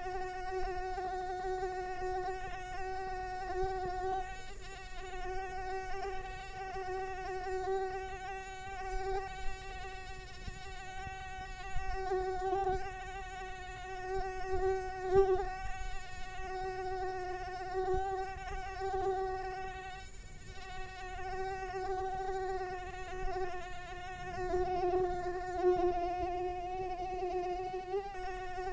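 Mosquito in flight, a continuous high whining buzz from its wingbeats that wavers slightly in pitch and swells and fades as it moves nearer and farther.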